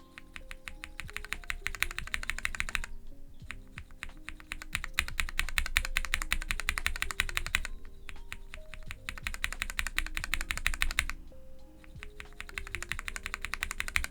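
Typing on a mechanical keyboard fitted with Cherry MX2A Orange switches, a run of fast key presses broken by brief pauses about three, eight and eleven seconds in. Soft background music plays underneath.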